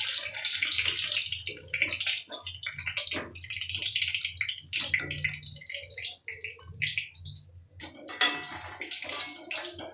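Potato pieces sizzling and crackling in hot oil in a steel kadai, with a slotted spoon clinking and scraping against the pan as the fried potatoes are lifted out. The sizzle is loudest at the start and swells again about eight seconds in.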